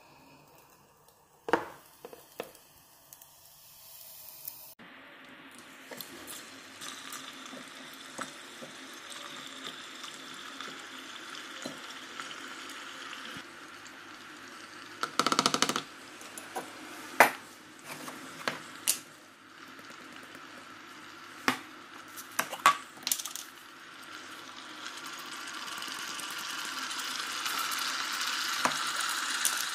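Plastic food containers and lids being handled on a counter, with sharp knocks and clicks over a steady hiss that grows louder near the end.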